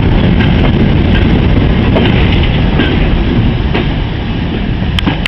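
Loud rumble of a goods train of steel mineral wagons rolling past close by, the wheels clicking over the rail joints, with the brake van at the tail going by near the end.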